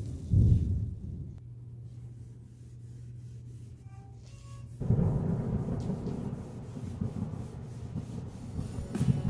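A rag rubbing oil into a bare wooden hammer handle, a continuous scrubbing that is loudest in the second half. A single thump comes about half a second in.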